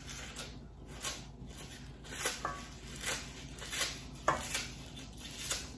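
Kitchen scissors snipping leafy greens into bite-sized pieces: a string of short, sharp snips, unevenly spaced about half a second to a second apart.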